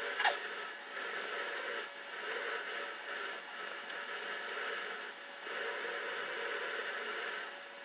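Steady hiss with soft slicing of a kitchen knife through food on a wooden cutting board, swelling and easing every second or so; a brief sharp falling squeak about a quarter second in.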